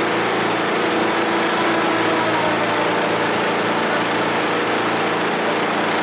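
Multi-head automatic template sewing machine running steadily, its sewing heads stitching along the template plates.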